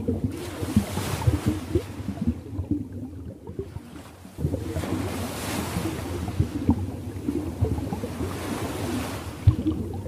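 Waves washing and lapping: a steady low churning of water with a hiss that swells and fades every few seconds. It drops quieter for a moment a few seconds in, then comes back abruptly a little past four seconds.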